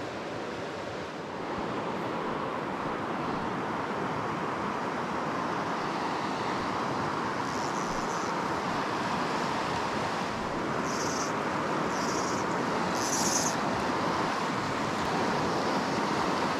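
River water running steadily over stones, a constant rushing that swells slightly as it goes on. Three brief high-pitched buzzes cut in over it in the second half.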